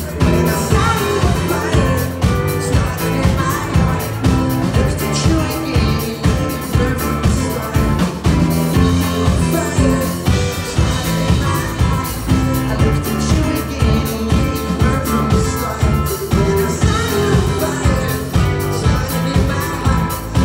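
Live band playing amplified pop-rock with a steady drum beat, electric guitars and keyboards, and singing over it.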